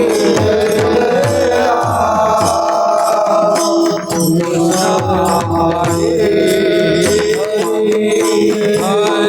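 Devotional kirtan music: a mridang drum plays a steady rhythm, its deep strokes sliding down in pitch, over held drone notes and a melody line.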